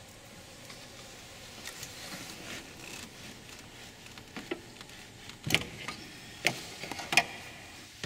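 Several sharp clicks and knocks from hands handling plastic caps and parts under a car's hood, the loudest about five and a half, six and a half and seven seconds in.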